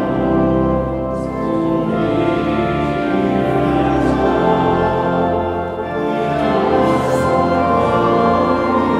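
Slow sacred music of sustained chords, the notes held and changing about once a second.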